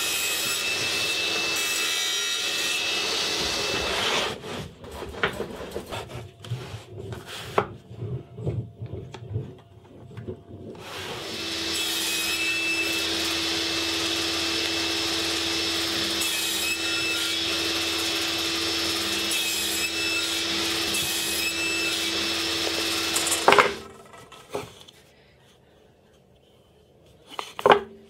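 Table saw running and crosscutting MDF on a sled, with a steady motor hum under the cutting noise; it stops about four seconds in. After several seconds of wood being shifted and rubbed, the saw runs again for about twelve seconds, ends with a sharp knock, and a couple of wooden knocks follow near the end.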